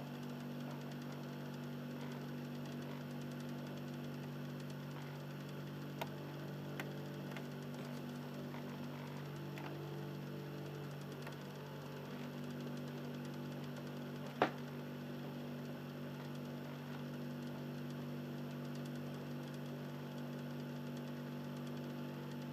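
Xbox 360 Slim's Philips Lite-On DVD drive motor making a steady, low, soft grinding hum while the console is in standby. There are two faint clicks about six seconds in and a sharper single click about fourteen seconds in.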